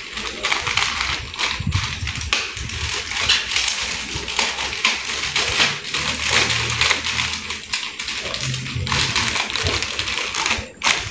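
Thin plastic bag crinkling and crackling in the hands as a rubber band is wound around it to tie it shut.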